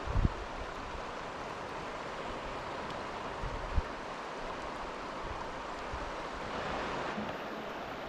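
River water rushing steadily, with two short low bumps, one right at the start and one about four seconds in.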